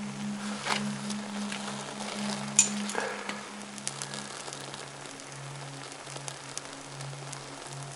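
Small fatwood kindling fire crackling, with scattered snaps and a sharp pop about two and a half seconds in, over a low steady drone.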